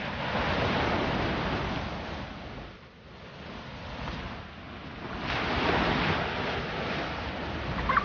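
Sea surf washing onto a beach, the rushing noise swelling and falling back twice, with a lull about three seconds in.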